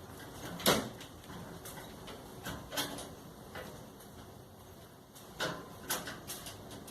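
Clothes-dryer parts being handled during a repair: a few separate knocks and clatters, the loudest about a second in and a pair near the end, with lighter ticks between.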